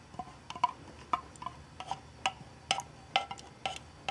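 About a dozen light, irregular clinking taps, two or three a second, as an 8-ounce tin can of tomato sauce is knocked against a stoneware slow-cooker crock to empty it.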